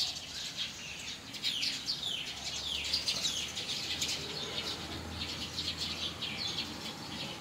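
A group of small birds chirping, many short falling chirps overlapping one another.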